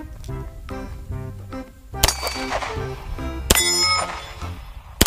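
Pistol shots fired at steel targets: two sharp reports about two and three and a half seconds in, each followed by the clang of struck steel plates ringing on, and another shot at the very end. A children's music track plays underneath.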